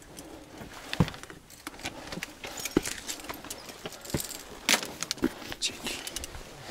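A hiker's gear jingling and clinking, with irregular sharp clicks and knocks of steps on rock, about one or two a second.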